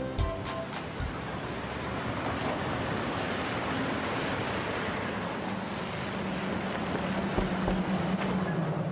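A short music phrase ends in the first second, then a steady rushing outdoor background noise carries on, with a faint low hum joining after about five and a half seconds.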